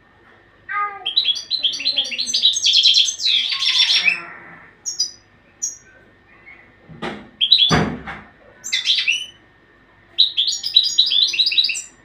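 Caged European goldfinch singing: quick twittering runs of high, liquid notes, then scattered single notes and another fast run near the end. A harsh, noisy burst comes a little past the middle.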